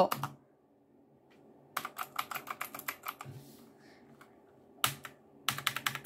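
Royal Kludge typewriter-style mechanical keyboard with round keycaps being typed on: a quick run of key clicks about two seconds in, a single click near five seconds, then rapid typing again near the end.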